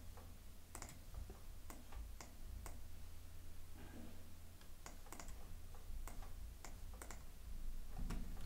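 Irregular clicks of a computer mouse and keyboard, roughly two a second, over a low steady hum.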